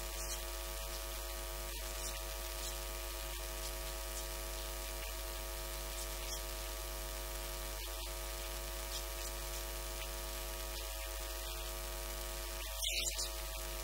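Steady electrical mains hum and hiss from the recording chain, with no speech. A quick cluster of small clicks sounds near the end.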